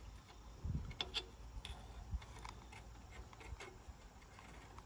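Faint, irregular light clicks and rustles from a coiled inspection-camera cable being handled and fed out.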